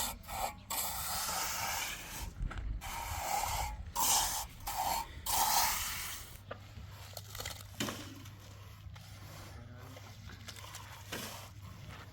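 A series of rough scraping strokes, each about half a second to a second long, for the first six seconds. Then it goes quieter, with a steady low hum and a few faint clicks.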